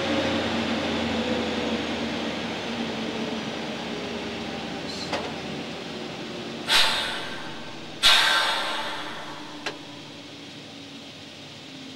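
Stationary RhB Ge 6/6 I electric locomotive heard from its cab: a steady machinery hum winds down, its pitch slowly falling. Then come two short, loud hisses about a second apart, each dying away, with single clicks before and after them.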